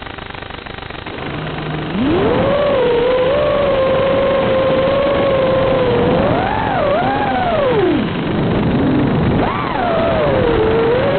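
Whine of an FPV radio-controlled model's small electric motors. About two seconds in it spools up to a steady pitch, then rises and falls sharply with the throttle, over a steady hiss.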